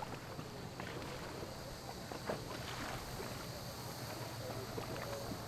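Water lapping and a few light knocks around a small paddled boat, over a steady low hum.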